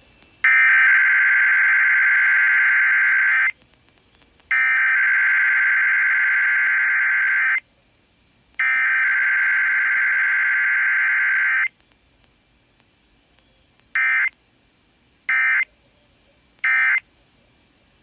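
Emergency Alert System SAME digital data bursts for a Required Weekly Test: three long bursts of data tones, about three seconds each with a second's gap between them, then three short end-of-message (NNNN) bursts about a second apart.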